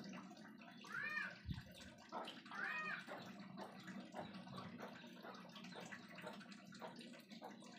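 Cat meowing twice, two short calls that rise and fall in pitch, about a second and a half apart, over a steady low hum.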